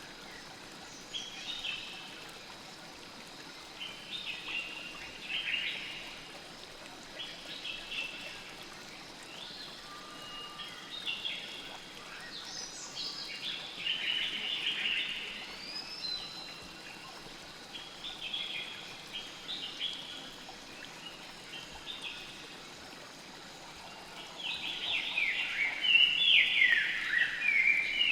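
Birds chirping and singing in short repeated phrases over a steady trickling stream, with a louder, busier flurry of calls near the end.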